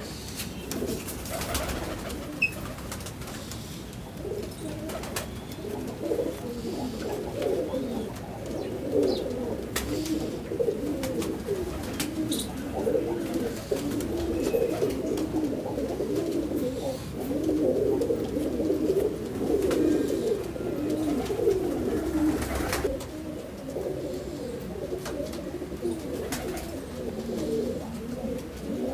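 Many domestic pigeons cooing at once, a continuous overlapping chorus of low, warbling coos, with a few sharp clicks scattered through it.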